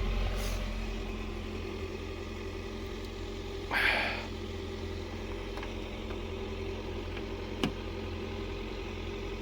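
Steady low hum of a running motor, with a short hiss about four seconds in and a sharp click near the end.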